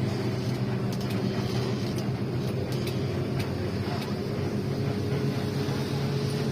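Bus engine running at a steady low drone, with a few faint clicks between about one and four seconds in.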